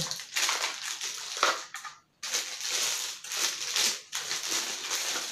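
Plastic packaging crinkling and rustling as a mini UPS battery is unwrapped by hand, in uneven spells with a brief stop about two seconds in.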